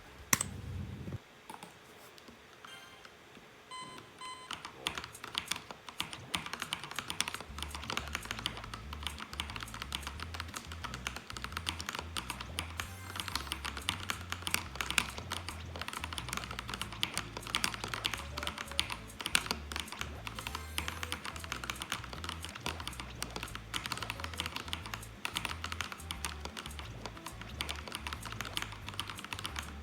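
Modded LTC Nimbleback 65% mechanical keyboard being typed on, a fast continuous run of keystrokes starting about four seconds in, over background music.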